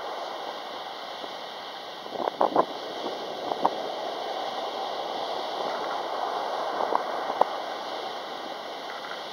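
Sea waves breaking and washing up a pebbly shore: a steady rushing surf. A few short, sharp knocks stand out, a cluster about two seconds in and more around seven seconds.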